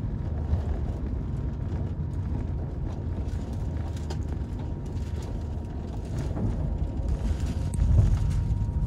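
Airbus A350 cabin noise on the approach to landing: a steady low rumble of engines and airflow with a faint steady whine, growing louder in the last couple of seconds.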